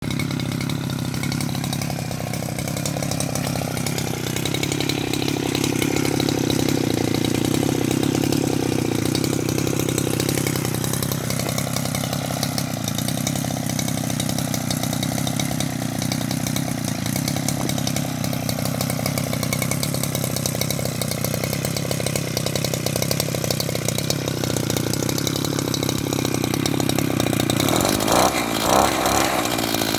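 Small two-stroke brush-cutter engine fitted to a bicycle, running steadily at a high buzz, with a brief rev that rises and falls near the end.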